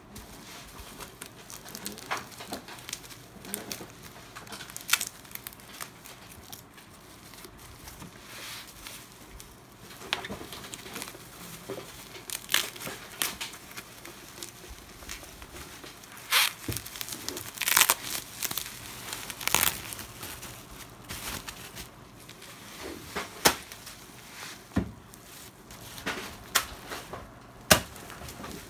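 Plastic bubble wrap crinkling and rustling as it is handled and peeled off a DVD player, with irregular sharp crackles, the loudest ones coming in the second half.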